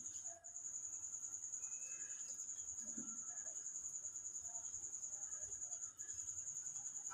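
A cricket chirping steadily: one high, even trill pulsing several times a second. Faint soft scrapes come from a spatula stirring flour into dough in a bowl.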